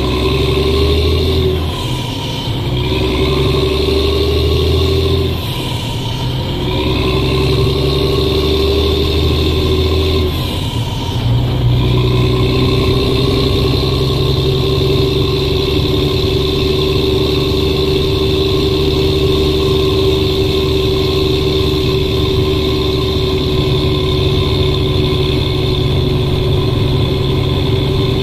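Mack E7 350-horsepower inline-six diesel in an unloaded truck, heard from inside the cab while the driver shifts up through the gears. The engine note drops briefly at gear changes about 2, 6 and 11 seconds in, then runs steady from about 12 seconds on.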